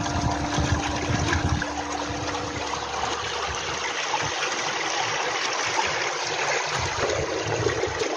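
Water rushing and splashing along the hull and in the wake of a small boat cruising slowly. A faint steady hum fades out about three seconds in.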